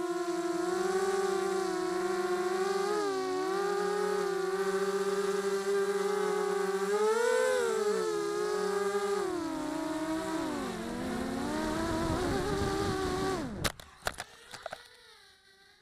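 Brushless motors of a small quadcopter (Tiger MT1306-10 3100 kV motors spinning 5-inch two-blade props) whining, recorded from the camera on board, the pitch dipping and rising with throttle. About thirteen seconds in the pitch drops away and several sharp knocks follow as the quad crash-lands and tumbles.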